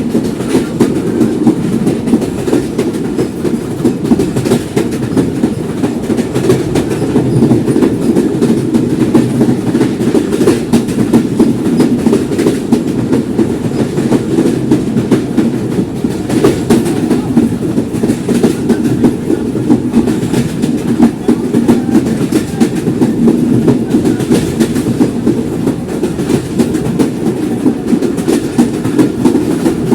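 Simanta Express passenger train running on the track: a steady rumble of wheels on rails with frequent sharp clicks from the wheels passing over rail joints.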